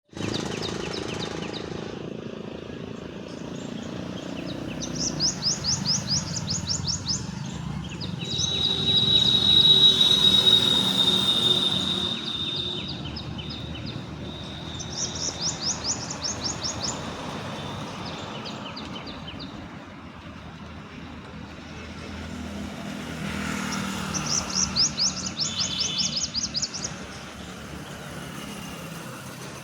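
A bird's fast, high trill, repeated three times about ten seconds apart, over a steady low rumble of traffic or machinery. About a third of the way in, a louder whooshing pass with a high steady whine rises and fades.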